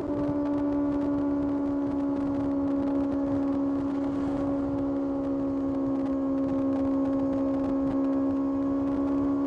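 Kawasaki ZX-6R inline-four engine running at a steady engine speed while riding, its pitch holding almost constant.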